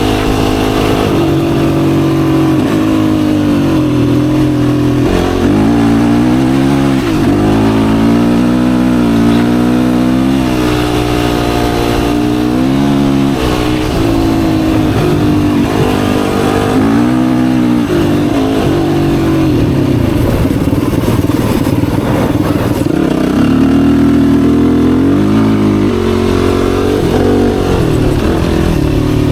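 Yamaha YFZ450R sport ATV's single-cylinder four-stroke engine under way, its pitch repeatedly climbing under throttle and dropping sharply as it shifts gears or the throttle is let off.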